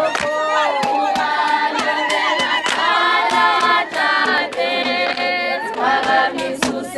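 A group of voices singing together in chorus, with sharp percussive beats keeping time.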